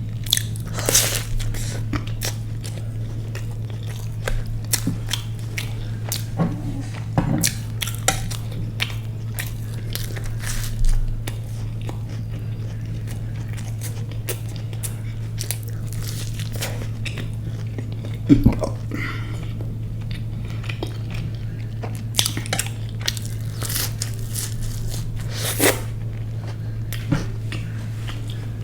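Close-miked eating: scattered crunchy bites and chewing, heard as irregular sharp clicks and short crackles, over a steady low electrical hum.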